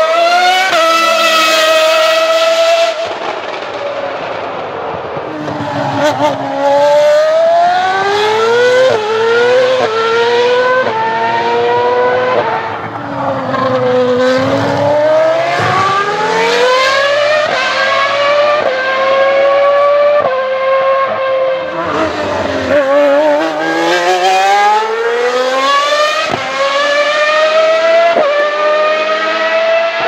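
Ferrari Formula 1 cars at speed on a race track, first a V12 and then a V10. The high-pitched engine note climbs through gear after gear and drops back at each shift, with a couple of dips where the car slows and downshifts.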